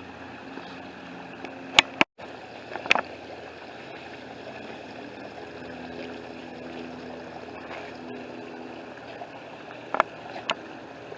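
Steady running water from a small waterfall, with a few sharp clicks, twice near the start and twice near the end.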